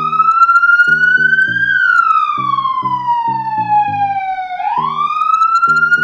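Police siren wail, its pitch climbing fast and then sinking slowly, starting a new rise near the end, over background music with a rhythmic bass line.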